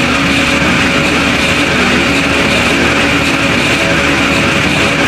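Harsh noise music: a loud, steady wall of dense noise with a few faint held drone tones beneath it.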